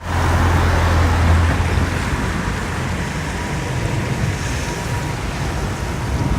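Wind buffeting the microphone, with heavy low rumbling in the first second and a half, over a steady rushing noise.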